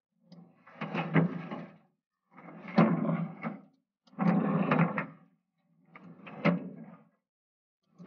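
Hot 4140 steel workpiece swept through quench oil in a stainless-steel tank with long tongs in a figure-8 motion. With each stroke comes a burst of churning oil and metal clicking and scraping against the tank, about every second and a half. This is the quench stage of hardening, where the steel is kept moving so it cools quickly and evenly.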